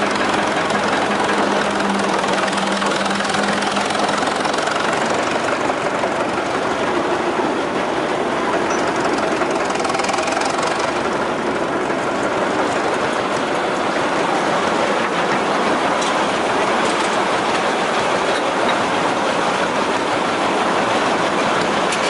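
1926 Northwest 105 dragline's Twin City gas engine and machinery running, a loud, steady mechanical clatter, with a low hum over the first few seconds.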